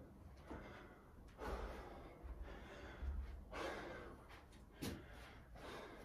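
A person breathing hard, several separate heavy breaths in and out, as they recover during a rest after push-ups.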